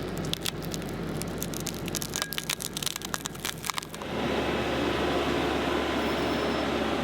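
A tractor engine runs while wood cracks and crunches in rapid, irregular snaps, as branches are cut or chewed up by a tractor attachment. About four seconds in, the sound changes abruptly to a louder, steady machine drone.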